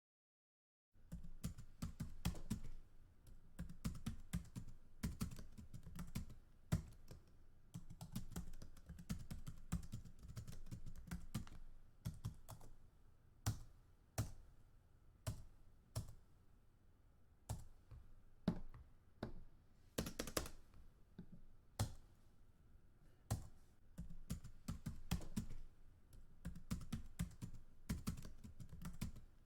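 Typing on a computer keyboard: quick runs of key clicks with a deep low thock, short pauses between words, and now and then a louder single stroke, starting about a second in.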